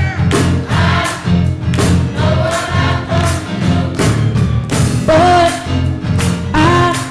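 Youth choir singing a call-and-response gospel song over a live band, with drums keeping a steady beat under a heavy bass line.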